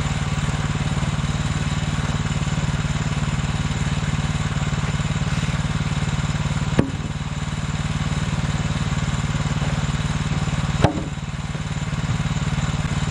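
Woodland Mills HM126 bandsaw mill's small gasoline engine idling steadily, with two sharp knocks, about 7 and 11 seconds in.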